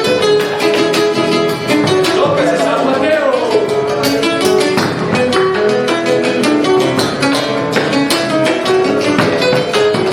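A gato, Argentine folk dance music from Santiago del Estero, played on two acoustic guitars and a bombo legüero: a lead guitar picks the melody over a strummed rhythm guitar with bass runs and the drum's beat.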